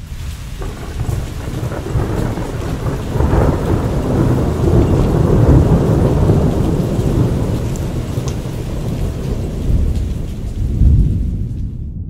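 A long, bass-boosted roll of thunder that swells to its loudest about halfway and then dies down, with a hiss over the deep rumble that starts and stops abruptly.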